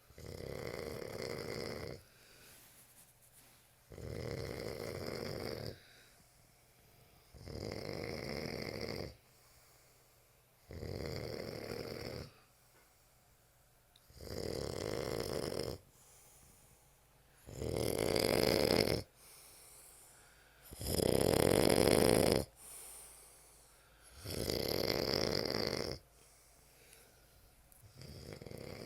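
A sleeping person snoring in a steady rhythm: about eight snores, one every three and a half seconds, each lasting one to two seconds, with faint breaths between them. The loudest two come about two-thirds of the way through.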